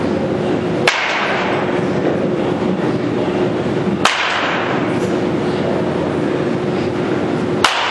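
A baseball bat striking pitched balls in batting practice: three sharp cracks about three seconds apart, over a steady noisy hum.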